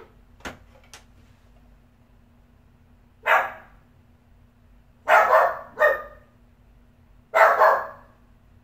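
Dog barking in short bursts, a handful of barks a second or two apart. It is a dog not used to apartment life, barking at the noises it hears.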